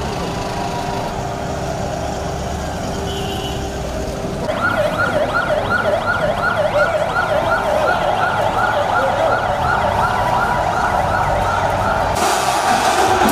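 Motorcade vehicles running, then from about four seconds in an escort siren yelping, its pitch rising and falling rapidly, about two or three sweeps a second. Near the end, crowd noise comes in.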